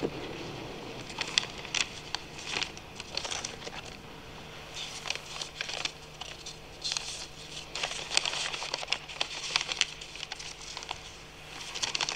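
Sheets of paper rustling and crinkling close to a lectern microphone, in irregular clusters of short crackles, over a faint steady hum.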